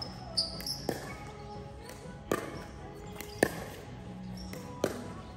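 Sharp hits of a ball being struck back and forth in a doubles rally: five knocks about one to one and a half seconds apart, with a few short high squeaks near the start. Music plays underneath.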